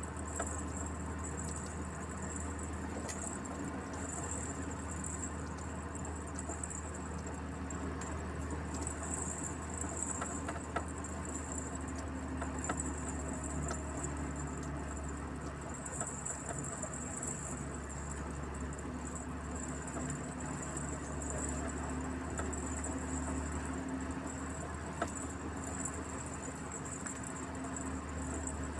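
Truck running along a road, heard from inside the cab: a steady low engine drone with road noise, small rattles and clicks, and a high thin buzz that comes and goes.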